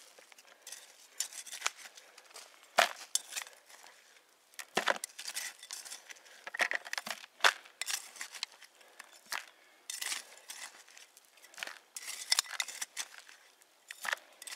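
Metal hand trowel scraping and digging into stony soil, with soil dropped into a plastic bucket: irregular scrapes and clinks.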